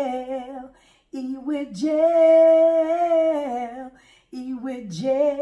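A woman singing unaccompanied, a short sung intro jingle in three phrases with brief breaks, the middle one a long held note with vibrato.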